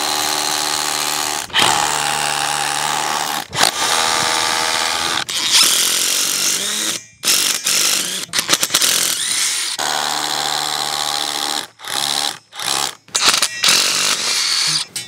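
Cordless DeWalt drill/driver running in repeated runs of about one and a half to two seconds with a steady motor whine, then in shorter stop-start bursts in the second half, driving screws into a concrete foundation to fix pipe clips.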